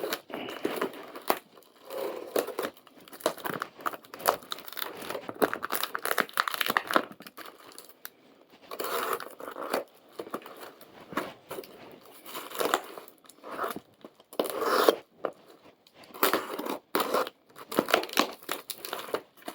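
Shipping packaging being torn open and crumpled by hand: irregular ripping and crinkling, with a few short pauses.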